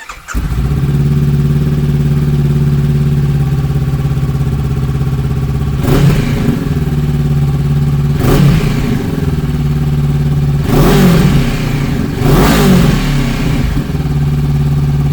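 2023 Honda CB500F's parallel-twin engine idling through a Mivv GP Pro slip-on exhaust with the dB killer fitted, blipped up four times and dropping back to idle after each. Loud even with the baffle in.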